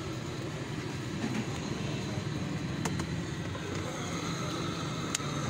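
Steady roadside traffic rumble with a low hum, and two sharp clicks, about three and five seconds in.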